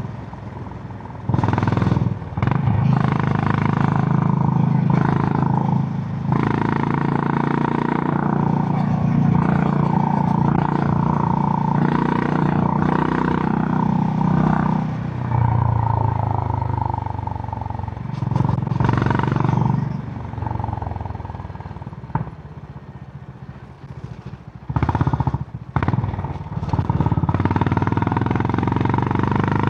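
Honda GB350's single-cylinder air-cooled engine running through its stock exhaust while riding, the throttle opening and closing. About two-thirds of the way through it eases off and goes quieter for a few seconds, then picks up again in a couple of short surges.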